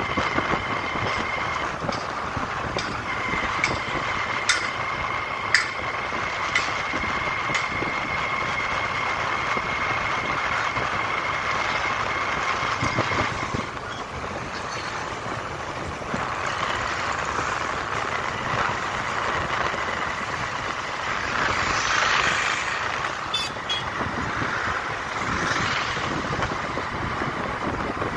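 Riding a motorcycle on an open road: the engine runs while wind and road noise rush over the microphone, with a steady high whine through the first half. Passing traffic swells louder a little past the middle.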